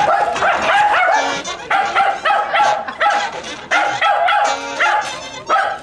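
Small terrier dogs barking in quick, repeated yips, about three a second.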